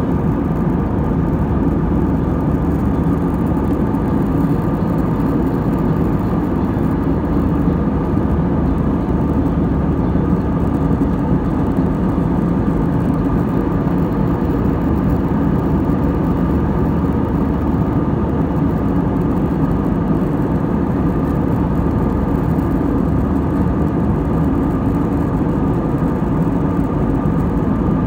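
Jet airliner cabin noise in flight: a loud, steady drone of engines and rushing air, heaviest in the low range, with a few faint steady tones above it.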